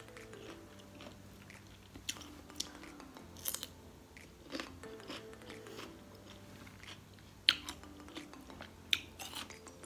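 Crisp bites and chewing of raw cucumber slices dipped in thick rujak sauce, close to the microphone. The crunches come irregularly, with a sharp one about three-quarters of the way through.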